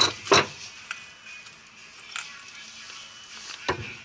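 Two sharp knocks about a third of a second apart, then a few light clicks, as parts are handled at a pickup's front wheel hub and suspension.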